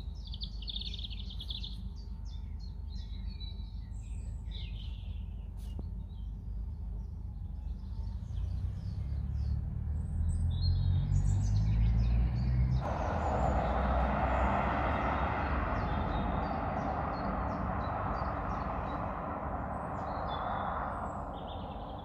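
Small birds chirping and singing in woodland over a low rumble. About halfway through, a steady rushing noise comes in suddenly and covers the birds until it fades near the end.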